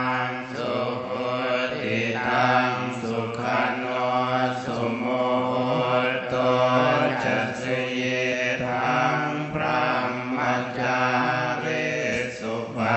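Theravada Buddhist monks chanting a blessing together on a low, steady reciting tone.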